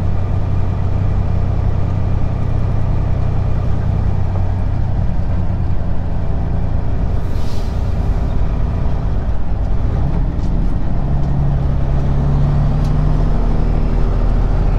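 Semi-truck's diesel engine running at low speed, heard from inside the cab, with a short hiss of air about seven seconds in. From about ten seconds in the engine note climbs a little as the truck pulls on.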